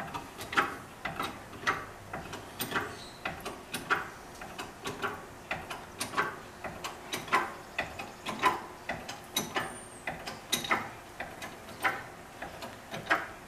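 Ratchet mechanism worked in repeated strokes, a sharp metallic click with a short ring about once or twice a second, as it lifts a Suzuki DRZ-400SM motorcycle onto a hitch-mounted carrier.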